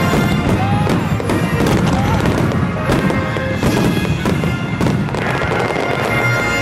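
Starmine fireworks barrage: many shells bursting in quick succession with crackling, over music with long held notes.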